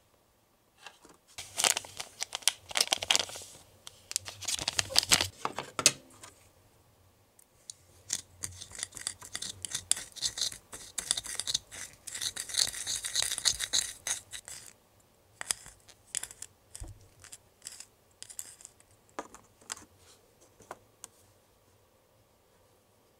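Scratchy plastic handling sounds. It opens with bursts of loud scratchy rustling, then comes a long stretch of a small plastic spatula scraping round a small plastic cup as the pink Konapun toy batter is mixed. After that, scattered short clicks and scrapes come as the batter is dabbed onto the sticks.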